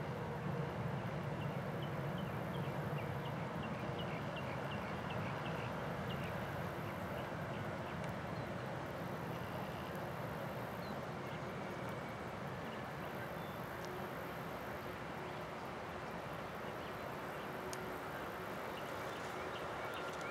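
Distant twin-engine jet airliner idling on the runway, a steady low hum and hiss, with faint bird chirps in the first half.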